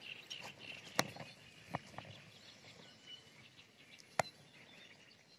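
Faint birds chirping in the background over light outdoor ambience, broken by a few sharp clicks about one, one and three-quarter, and four seconds in.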